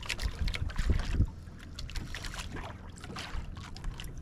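Wind buffeting the microphone and water slapping against the hull of a small outrigger boat, with irregular knocks and splashes, most of them in the first second or so.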